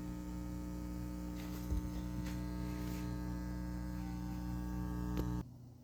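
Ground-loop mains hum from powered studio monitors: a steady low buzz with many overtones. It cuts off suddenly near the end.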